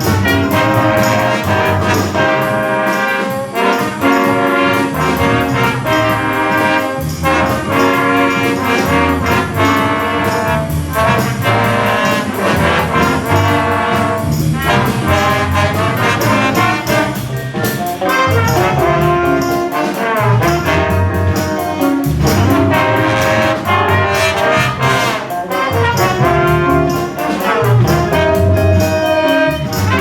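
High school jazz big band playing a funk-groove chart, with the trombones and trumpets to the fore in loud ensemble horn lines over a steady rhythmic beat.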